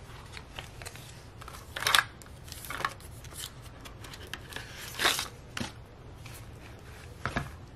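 Rustling and crinkling of clear plastic cash envelopes and paper banknotes as a ring binder of envelopes is opened and leafed through, in scattered short strokes, the loudest about two and five seconds in.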